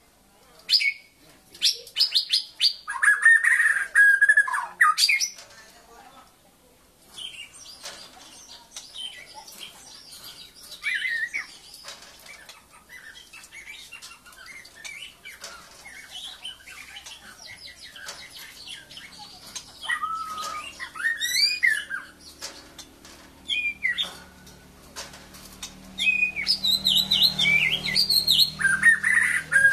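White-rumped shama singing a varied series of whistled, gliding and chattering phrases. It is loudest in bursts during the first few seconds and again near the end, with quieter, scattered notes in between.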